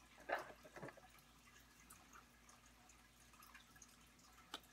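Near silence with a few faint, light taps and clicks from makeup containers, among them a round compact, being handled. A sharp click comes near the end.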